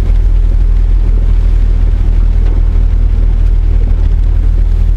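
A truck being driven, a steady low rumble with no change in pitch or level.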